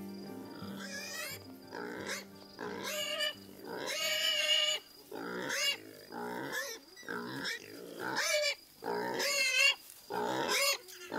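Feral pigs squealing repeatedly: high, wavering squeals about once a second, with a longer one about four seconds in.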